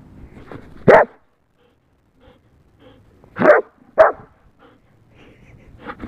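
Young Old English Sheepdog barking three times: one bark about a second in, then two quick barks in a row a couple of seconds later.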